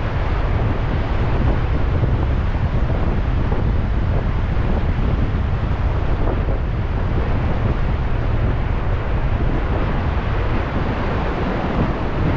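Gale-force wind buffeting the microphone in a steady, heavy low rumble, over the wash of ocean surf.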